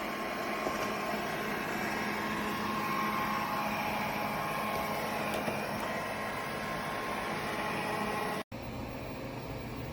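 Airzeen R7 robot vacuum running: a steady whir of its suction fan and brushes with a steady hum under it. It cuts out for an instant about eight and a half seconds in, then carries on a little quieter and duller.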